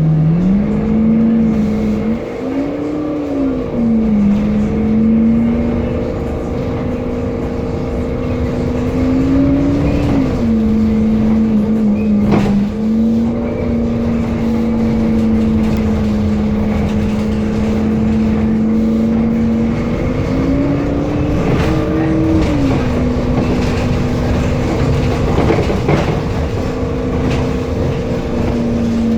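Temsa Avenue LF city bus with a DAF diesel engine and ZF Ecolife six-speed automatic gearbox, driving with a strong steady droning tone over the running noise. The tone rises in pitch and falls back a few times, about two seconds in, about ten seconds in and around twenty-one seconds in. A few short knocks or rattles come through near the middle and later on.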